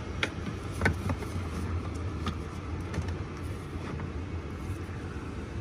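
Plastic cabin (pollen) filter tray being slid back into its housing under the dashboard: a few light clicks and knocks of plastic against plastic over a steady low hum.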